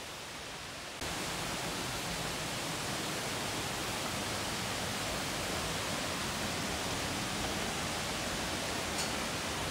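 Steady rushing of a waterfall below, an even hiss with no rhythm that jumps up abruptly about a second in and then holds level. Two faint light ticks come near the end.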